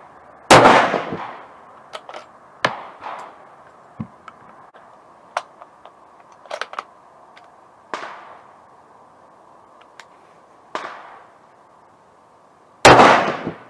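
Two rifle shots about twelve seconds apart, one about half a second in and one near the end, each with a short echoing tail. Between them come scattered metallic clicks and clacks of the rifle being handled and worked between shots.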